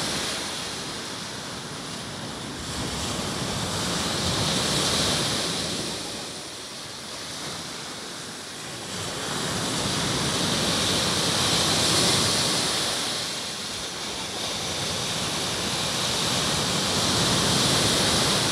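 Baltic Sea surf breaking on the shore, the hiss of the waves swelling and falling back about every six to seven seconds.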